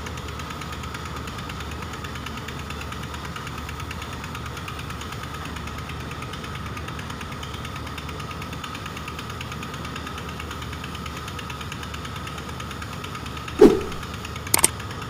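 Steady drone of a boat's diesel engine running, with a fast, even knock. Near the end a short falling whoosh is the loudest sound, followed about a second later by a couple of sharp clicks from a subscribe-button animation.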